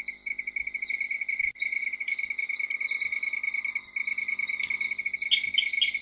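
Night insects, cricket-like, trilling steadily in a fast, even pulse of high chirps that breaks off briefly twice. A few louder chirps stand out near the end.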